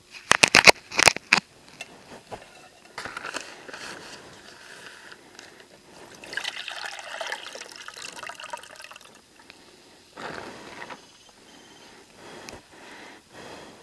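Water pouring and trickling through a double-layered t-shirt in a cone coffee filter into a steel bottle, coming in several spells of a few seconds each. About a second in, a quick run of sharp clicks and knocks stands out as the loudest sound.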